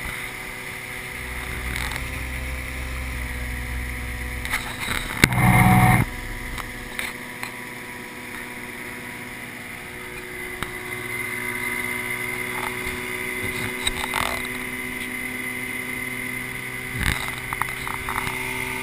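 Outboard motor pushing a small aluminium open boat along at speed: a steady engine drone with water rushing past the hull. A loud burst of noise comes about five seconds in.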